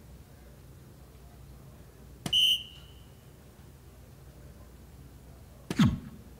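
Two soft-tip darts strike an electronic dartboard about three and a half seconds apart, each hit setting off the machine's electronic scoring sound. The first is a short high beep; the second, louder, is a tone falling in pitch. Each sound registers a single, 17 and then 2.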